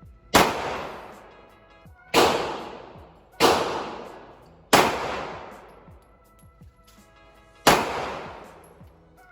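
Five gunshots at a gun range, spaced unevenly, each ringing out in a long echoing tail. Quiet background music plays underneath.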